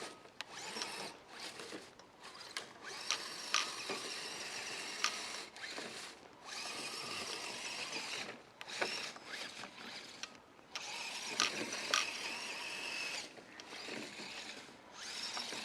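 Electric drive motor and gearbox of an Axial SCX10 Deadbolt RC crawler whining in stop-start bursts of throttle, each lasting a second or a few, with a few sharp clicks and knocks as it works over the trail.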